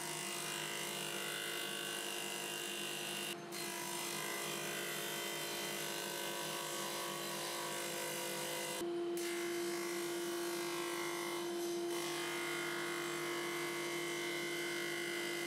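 Cast-iron table saw with an induction motor running steadily, its dado blade cutting a groove in a plywood board fed along the fence. A steady motor hum whose tone shifts abruptly a few times.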